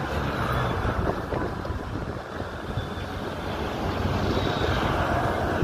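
Wind buffeting the phone's microphone: a rushing rumble that swells and eases in gusts.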